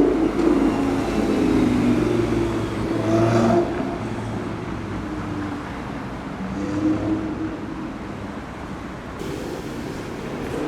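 Sports car engine revving and accelerating, loudest over the first three seconds or so, then dropping off sharply, with a second, smaller rise in engine note about seven seconds in.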